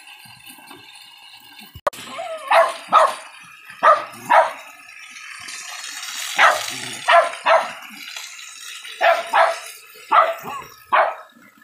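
Jack Russell terrier barking, about a dozen sharp barks mostly in quick pairs, starting about two seconds in.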